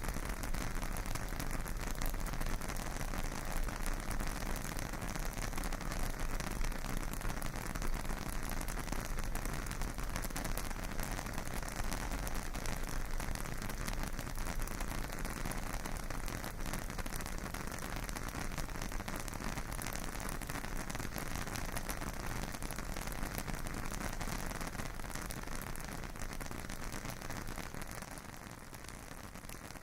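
Creek water rushing steadily in a constant hiss, with a low rumble underneath. It eases slightly near the end.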